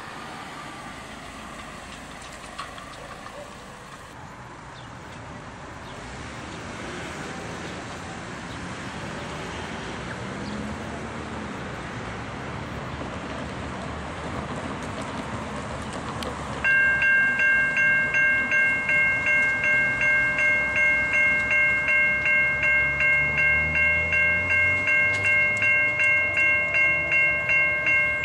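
A railway level crossing bell starts suddenly about two-thirds of the way in and rings rapidly, about three strokes a second. Before it there is a steady rushing noise that slowly grows louder.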